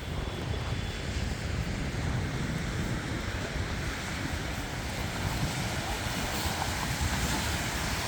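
Wind buffeting the microphone in uneven low rumbles over a steady rushing hiss, which grows a little louder in the second half.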